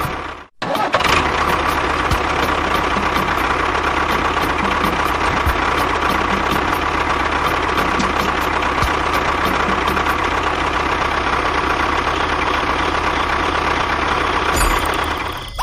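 Small electric motor of a DIY miniature tractor or bulldozer model running steadily with a high whine. It cuts out briefly about half a second in, then resumes.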